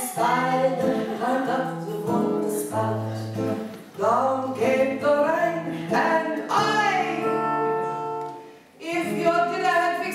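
A woman singing with acoustic guitar accompaniment. Near the end she holds a long note, breaks off briefly, then the song picks up again.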